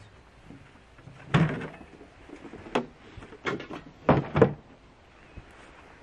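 Hood of an old snowmobile being handled and lifted off: a series of clunks and knocks, the loudest about a second in and a close pair around four seconds in.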